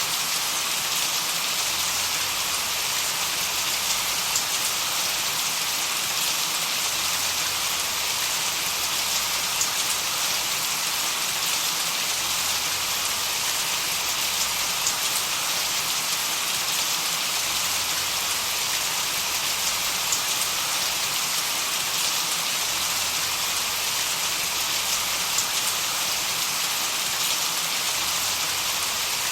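Steady, even hiss of a tinnitus-masking noise track, strongest in the high range, with faint scattered tiny ticks much like rain.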